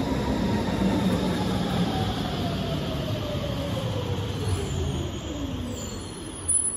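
Vienna U6 train braking into the station: its electric drive whine falls steadily in pitch as it slows, over a wheel rumble that fades. A sudden louder noise comes at the very end.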